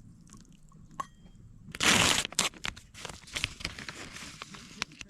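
A packet torn open with one loud rip about two seconds in, then crinkled and handled with sharp crackles: the wrapper of a tea-bag-style coffee bag being opened.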